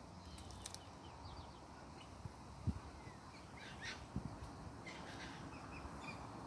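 Faint, scattered short bird chirps over a quiet outdoor background, with a sharp low thump a little before halfway and a few softer thumps around it.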